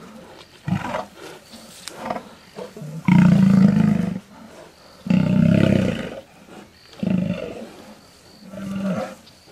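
Lions growling and roaring in an attack on a wounded male lion: two loud, low calls of about a second each, about three and five seconds in, with quieter growls between.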